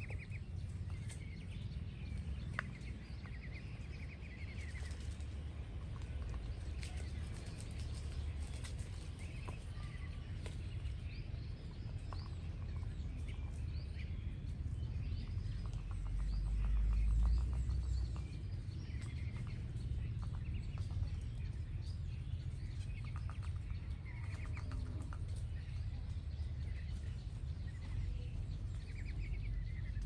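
Faint, scattered peeps and chirps from a flock of young ducks, over a steady low rumble that swells briefly about halfway through.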